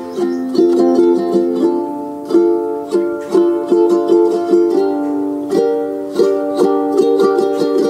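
Background instrumental music: a light plucked-string tune with notes struck in a steady rhythm.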